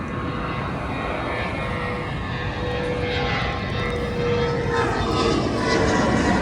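An airliner's engines passing close: a steady rumble with a whining tone, growing louder.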